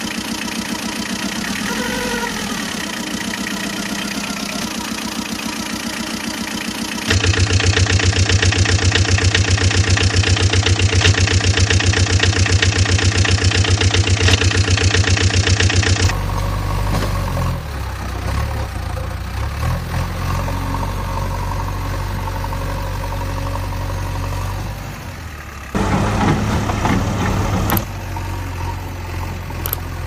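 Engine sound effects dubbed over toy trucks: a motor-vehicle engine running and idling, changing abruptly from one clip to the next. About seven seconds in it jumps to a louder engine with a fast, even pulse, for about nine seconds, then drops back to a lower, uneven running sound.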